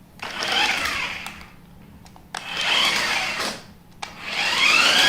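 A toy RC monster truck's electric drive motor and gearbox whining in three bursts, the pitch rising as it speeds up and falling as it slows.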